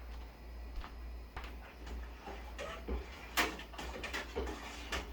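Scattered clicks and knocks of things being handled in a kitchen, the sharpest about three and a half seconds in and again near the end, over a steady low hum.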